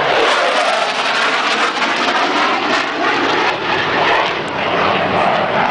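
Military fighter jet flying past overhead, its jet engine noise loud and steady.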